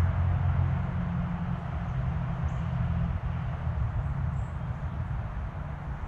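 Steady low engine hum from distant motor traffic, with a few faint, high, short bird chirps over it.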